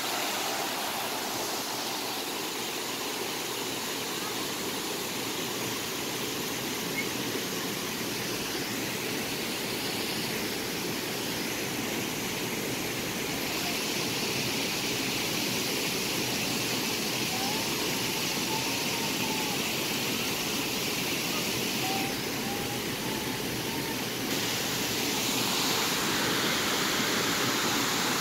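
Steady rushing of a cascading mountain stream and small waterfall tumbling over rocks, its tone shifting abruptly a few times.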